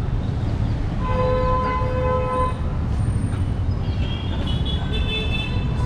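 Busy road traffic with vehicle horns honking over a steady low rumble of engines. A long horn sounds about a second in, with a short break partway through, and higher-pitched horns join from about four seconds in.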